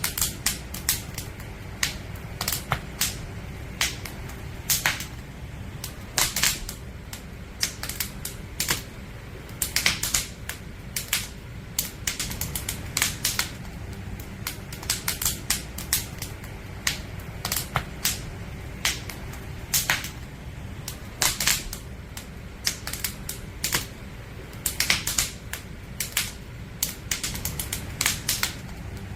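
Wood fire crackling: firewood burning with irregular sharp pops and snaps, several a second, over a steady low rushing of the flames.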